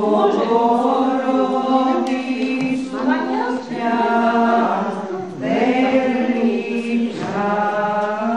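A group of voices singing Orthodox church chant, one low note held steady as a drone beneath a slowly moving melody.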